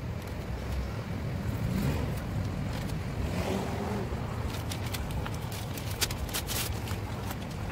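Low wind rumble on the microphone with a steady outdoor background hum, and in the second half a cluster of sharp crackles from sheets of newspaper being handled while masking an engine bay.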